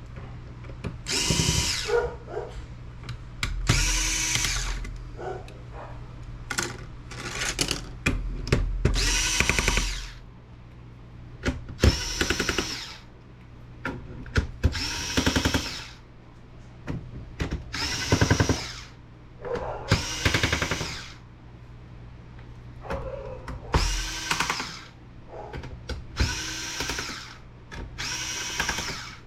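Small cordless electric screwdriver whirring in about a dozen short spurts of a second or so, backing screws out of a laptop's case, with small clicks between the spurts.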